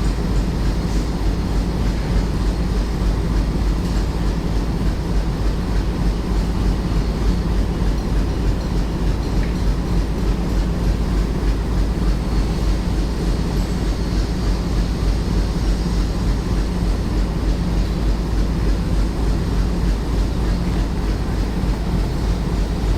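Train running steadily, a continuous loud rumble with a steady low hum and no pauses.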